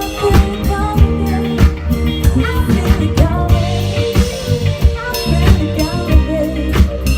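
Band playing a song with a steady beat on a drum kit, a bass line, and a voice singing the melody.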